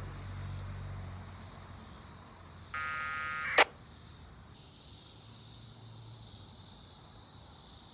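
A short burst of 1200-baud packet radio data from the Kenwood TH-D74A handheld's speaker, lasting under a second about three seconds in and ending in a sharp click. Around it, only faint hiss and a low hum.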